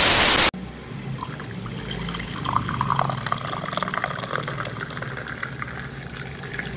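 A loud burst of static hiss that cuts off suddenly about half a second in, then water running and splashing steadily.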